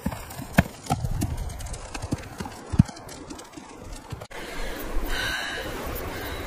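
Scattered knocks of footsteps and goat hooves on stony ground. About four seconds in it changes abruptly to a steady rustling ambience.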